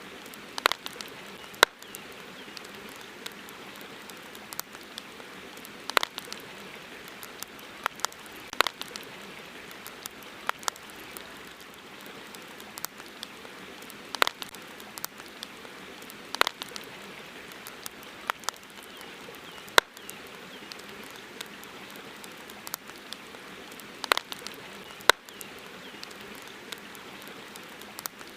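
Campfire crackling: irregular sharp pops and snaps of burning wood, about one every second or two, over a steady hiss.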